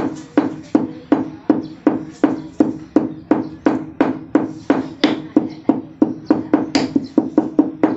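Hammer blows on the end of a new wooden handle where it sits in a one-pound hammer head's eye, mushrooming the wood flat so the head stays tight. The knocks are steady and even, about three a second, coming a little faster near the end.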